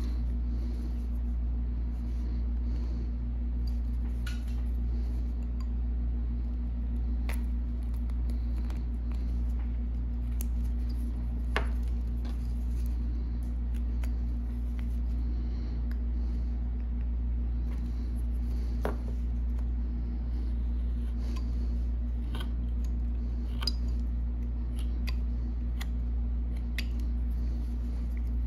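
Carving knife making small cuts in a block of scrap wood: short clicks that come irregularly, every second or few, over a steady low hum.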